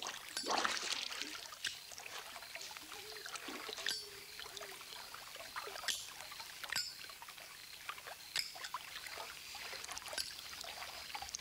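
Swimming-pool water splashing and lapping as a person moves through it, with a louder splash about half a second in and then small irregular splashes and drips.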